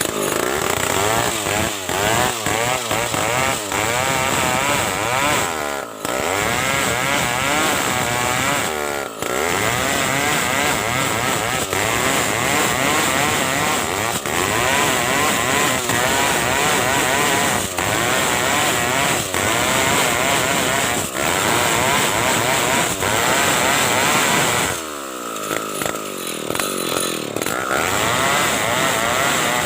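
Stihl chainsaw running hard as it rips a big ulin (ironwood) log into planks, its engine pitch wavering under load. The revs dip briefly about six and nine seconds in, and drop off for a couple of seconds near the end before climbing again.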